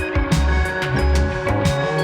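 Background music with a steady beat: bass, held chords and drum hits about twice a second.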